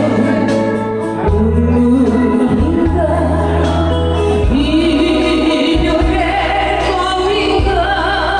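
A woman singing a Korean trot song through a handheld microphone over instrumental accompaniment with sustained bass notes.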